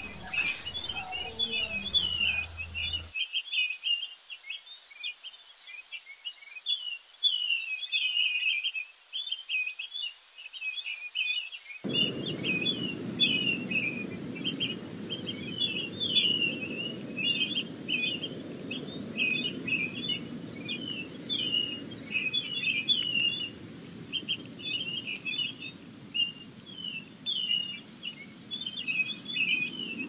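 A flock of small birds chirping and chattering without a break: many short, high chirps and buzzy trills overlapping. A low, steady background noise comes in under them about twelve seconds in.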